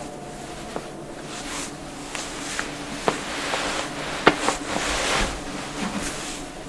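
Human joints cracking: several short, sharp pops spread over a few seconds, the loudest about four seconds in, with rustling of skin and clothing around them as the body is worked.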